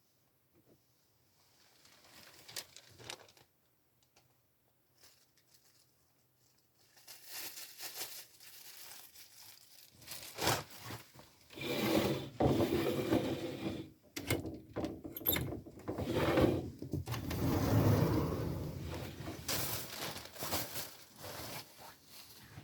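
Rustling and rubbing noise in irregular bursts with a few sharp clicks, faint at first and much louder from about ten seconds in.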